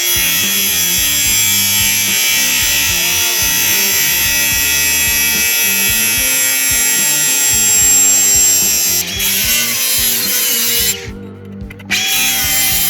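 Background music with a moving bass line, over the steady high whir of a power tool working on metal tubing; the tool sound drops out for about a second near the end.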